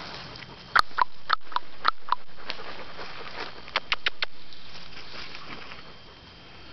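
Steps crunching and crackling in dry fallen leaves: a string of sharp crackles about a second in, another quick cluster around four seconds in, then quieter.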